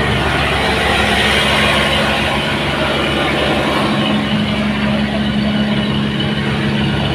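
An engine running steadily at a constant speed, loud, with an even low hum that does not change.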